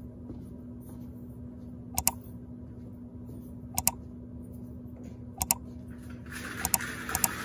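Steady low electrical hum with sharp paired clicks about every second and a half. Near the end a hiss rises with several quick clicks in it.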